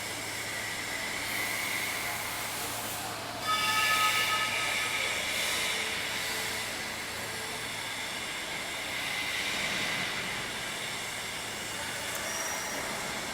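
Workshop machinery noise: a steady hiss over a low hum. About three and a half seconds in, a whine of several high tones sets in suddenly and fades away over the next few seconds.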